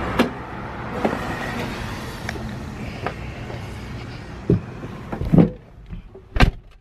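Steady outdoor vehicle and traffic noise with a few handling knocks, then a car door shuts with a thud near the end and the outside noise drops away.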